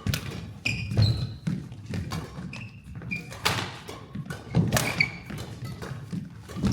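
Badminton rally: a run of sharp knocks from racket hits and footfalls, with several short, high sneaker squeaks on the court floor.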